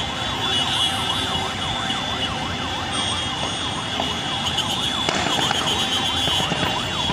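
Several vehicle sirens yelping, their pitch sweeping quickly down and up over and over and overlapping, above the steady din of a large crowd.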